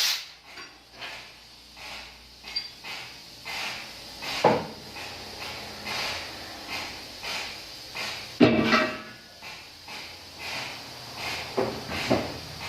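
A series of light irregular knocks and clunks, with louder thuds about four and a half and eight and a half seconds in.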